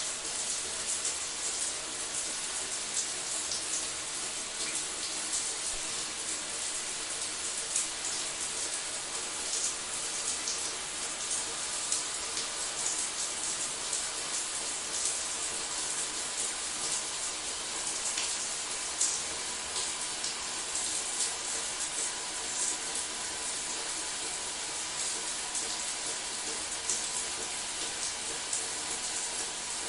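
Shower water running steadily, a continuous spray of water falling and splashing.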